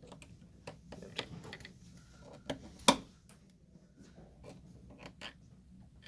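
Flat-blade screwdriver prying at the plastic hinge covers of a portable freezer, making scattered small plastic clicks and scrapes, the sharpest click about three seconds in.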